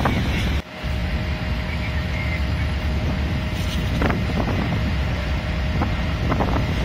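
Wind buffeting the microphone over a steady rumble of road traffic. The level drops sharply for a moment about half a second in.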